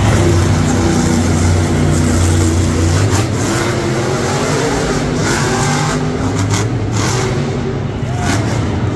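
Monster truck's supercharged V8 engine revving loudly, its pitch wavering up and down, loudest in the first three seconds and then easing off a little.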